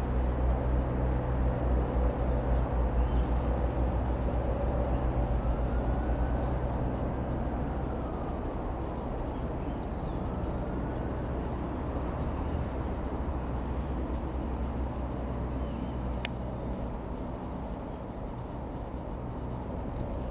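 Light aircraft's piston engine droning steadily, slowly fading as it moves away.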